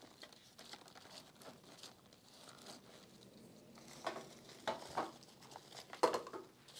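Faint rustling and crinkling of fresh roses being handled, petals rubbing and tearing as outer guard petals are pulled away, with a few soft snaps and clicks in the latter half.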